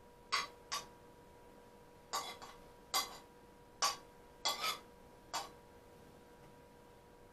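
Light clinks of white crockery as a serving bowl of prawns is tipped and tapped against a plate: about nine short, sharp clicks over the first five and a half seconds, some in quick pairs.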